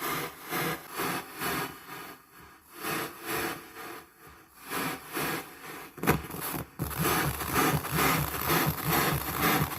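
No-input mixer feedback, its aux send looped back into a channel: a noisy, static-like synth tone pulsing about twice a second. About six seconds in there is a click, and the pulsing turns louder.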